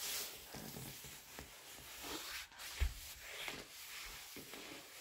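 Paper towel being rubbed and wiped across a hard floor to clean up a mess, with soft rustling and scuffing and a single thump about halfway through.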